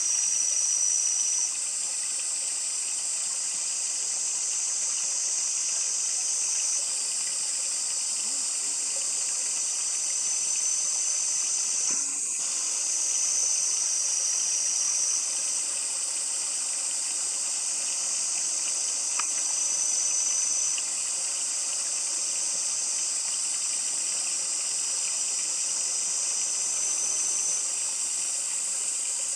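Steady high-pitched insect chorus, with a thin high note that swells in for a second or two and drops away every few seconds.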